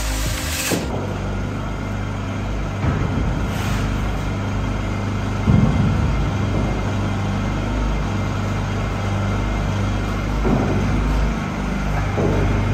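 An angle grinder cutting steel container wall cuts off less than a second in. A steady low engine hum runs on, with a few brief louder moments.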